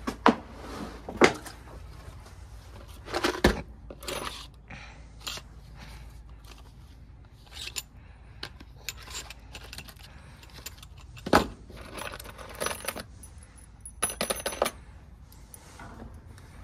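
Small metal fasteners clinking and rattling in a handheld tray, with scattered sharp knocks. The loudest knocks come near the start and about 11 seconds in, followed by bursts of ringing metallic jingling.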